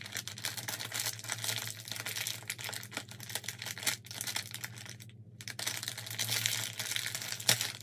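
Printed plastic blind-bag packaging crinkling and crackling as fingers pick and pull at it to open it, a run of small crackles with a brief pause about five seconds in.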